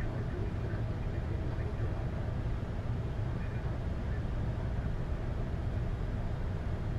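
Steady low rumble on the flight deck of a Boeing 747-8 on the ground after landing, its remaining engines running.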